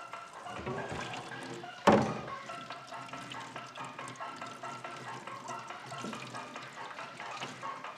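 Tap water running into a stainless steel kitchen sink as dishes are washed by hand. A dish or utensil clanks loudly against the sink about two seconds in.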